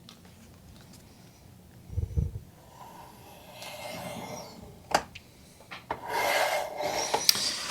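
Mechanical pencil scratching on wood while tracing around a template, louder from about six seconds in. There is a soft knock about two seconds in and a sharp click about five seconds in.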